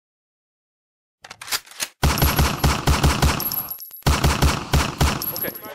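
About a second of silence, then a few faint clicks, then rapid automatic gunfire at about five shots a second. The firing breaks off abruptly about four seconds in and starts again at once, as an edited sound effect over the channel's intro card.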